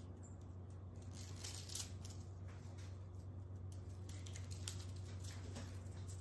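Used acoustic guitar strings being wound by hand into a tight coil: faint, irregular metallic ticks and rustles as the wire ends knock together.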